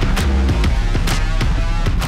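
Rock music with guitar and a steady drum beat of about two hits a second.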